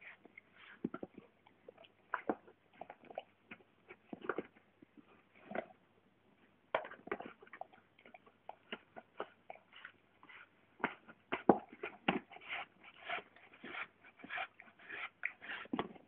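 Golden retriever licking and lapping at a soup carton: irregular wet smacks and clicks, coming thicker in the second half.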